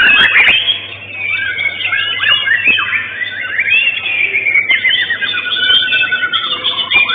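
White-rumped shama (murai batu) singing a loud, unbroken stream of rapid, varied whistles and pitch glides, with a faint steady hum underneath.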